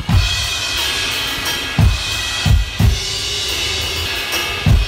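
Drum kit playing a slow beat: kick drum strokes in a repeating pattern of three, with cymbals sounding throughout.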